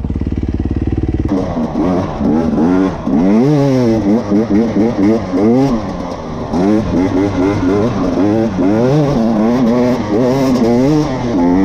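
Dirt bike engine heard from on board, revving up and down over and over as the rider works the throttle along the trail. A steady lower drone fills the first second or so, then changes abruptly.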